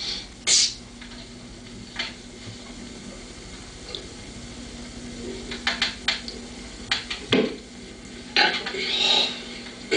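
Drink cups being handled and set down on a table: scattered light clicks and knocks, with a heavier knock about seven seconds in.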